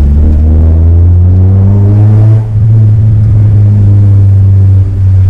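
Tuned Honda Civic Si's engine and loud exhaust heard from inside the cabin while accelerating: a heavy low drone whose pitch climbs, drops briefly about halfway through, then climbs again.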